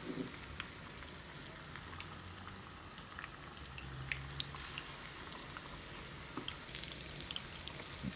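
Battered pork pieces deep-frying in a pan of oil, a steady sizzle dotted with small crackles and pops. The oil is at medium heat, more than warm and less than hot.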